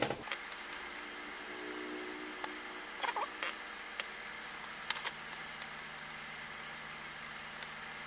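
A few small clicks and taps of metal tweezers and a soldering iron against a circuit board as an old reed switch is desoldered and lifted out, over a steady faint hiss.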